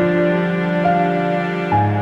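Slow, calm background music: soft held chords, a new one starting about every second.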